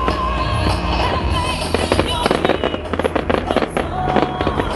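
Fireworks display: a dense run of shells bursting and crackling, many bangs a second, over the show's music soundtrack with held notes.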